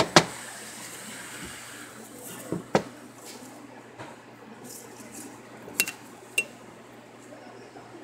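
Metal hand tools knocking and clinking on a tabletop as they are handled. There are a pair of sharp knocks at the start, another pair a few seconds later, and two short ringing metallic clinks near the end.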